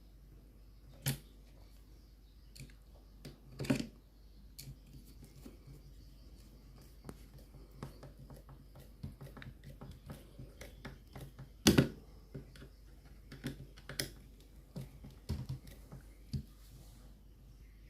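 Irregular light clicks and taps of electric fan parts being handled and fitted together during assembly, with a few sharper knocks: about a second in, near four seconds, and two close together around twelve seconds.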